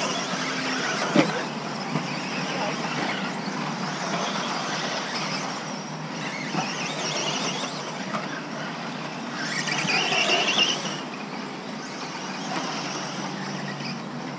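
Electric 1/10 two-wheel-drive RC buggies racing on the track: motor and gear whine rising and falling as the cars pass, loudest about ten seconds in, over tyre noise. A sharp knock about a second in.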